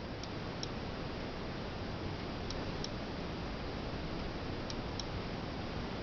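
Steady hiss with three pairs of faint, high-pitched ticks, the pairs about two seconds apart.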